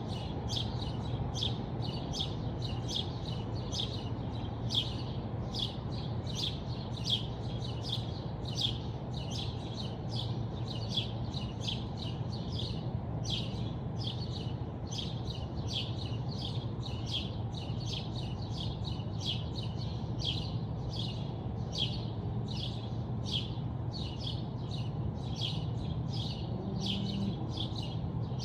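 Small birds chirping in short, evenly repeated calls, about two a second, over a steady low hum.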